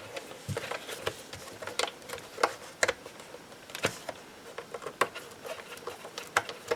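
Irregular sharp clicks and light knocks of hard plastic parts being handled and pressed together during reassembly of a Eufy RoboVac 11S robot vacuum.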